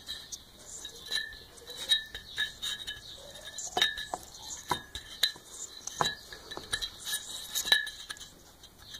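Scattered light metallic clicks and clinks from the Sachs Dolmar KMS-4 Wankel rotary chainsaw being handled, its rotor turned slowly by hand.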